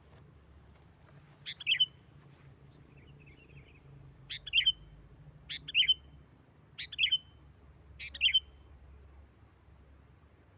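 Sooty-headed bulbul (kutilang) calling: five short, loud phrases, the last four about a second apart, each a sharp note running into a quick warble. Faint softer chirps fall in between, over a low steady hum.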